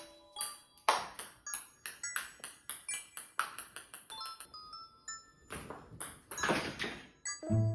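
Background music with light bell-like notes, over a string of sharp, ringing clicks that come irregularly about three or four times a second, densest about six seconds in.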